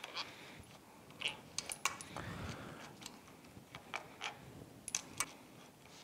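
Faint, irregular metallic clicks and clinks of a socket wrench with an extension working the bolts out of an outboard lower unit's plastic water pump housing, with the bolts and tool knocking against the housing.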